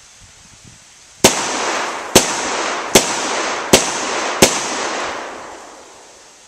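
Five unsuppressed shots from a SIG P220 .45 ACP pistol with full loads, fired at a steady pace of a bit under one a second. Each shot is very loud and sharp and leaves a long echoing tail that fades out about a second after the last shot.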